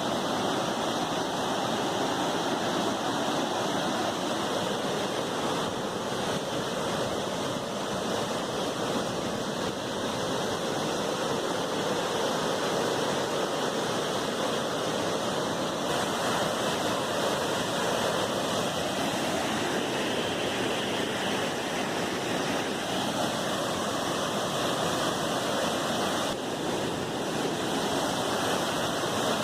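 Waterfall: steady rushing roar of falling water, even and unbroken.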